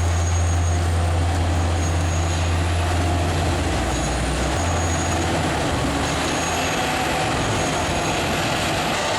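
A large engine-driven machine running steadily under load, with a constant deep drone and mechanical noise over it.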